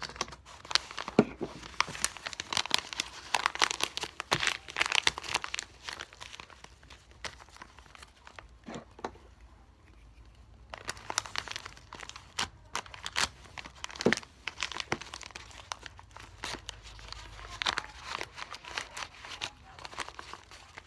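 Paper and the plastic-bag stuffing inside it crinkling and rustling as the paper squishy is handled and pressed shut with glue, in dense irregular crackles that ease off for a few seconds midway.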